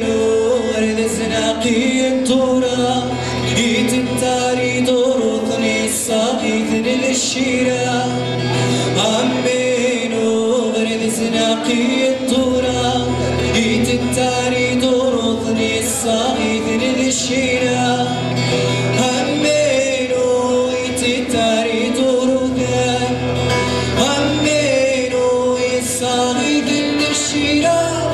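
A man singing a melody with held notes, accompanying himself on a strummed acoustic guitar.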